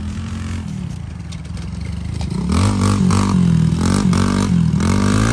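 Yamaha TT-R90's small four-stroke single-cylinder engine under a rider: running fairly steadily at first, then from about halfway louder, revving up and dropping back several times as the throttle is worked.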